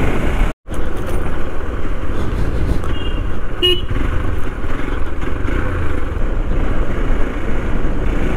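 Motorcycle running along a rough dirt road: steady wind rush and low engine and road rumble on a helmet-mounted microphone. The sound cuts out for a split second about half a second in, and a brief high beep sounds a little over three seconds in.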